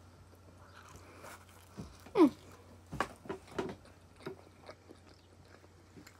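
A person biting into and chewing a slice of cheese pizza: soft scattered mouth clicks and crackles. About two seconds in comes one short falling whine, the loudest sound.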